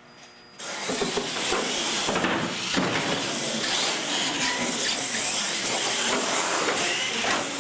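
Radio-controlled monster trucks launching and racing flat out across a concrete floor: motors and drivetrains running hard with tires rushing on the concrete. The sound starts suddenly about half a second in and stays loud and even.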